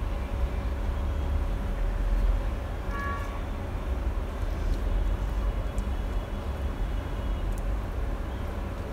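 Steady low background rumble with a faint constant hum. A short pitched tone with overtones sounds once, about three seconds in.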